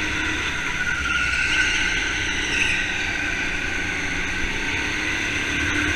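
Go-kart running at racing speed with a steady high whine.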